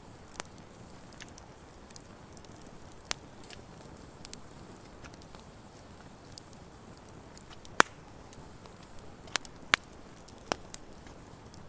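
Wood fire crackling: a few scattered sharp pops over a steady low hiss, the loudest pop about eight seconds in and two more in quick succession soon after.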